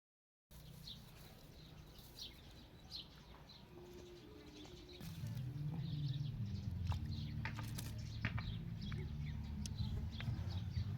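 Short, high bird chirps over a low steady rumble. About five seconds in the rumble grows louder and scattered clicks join it.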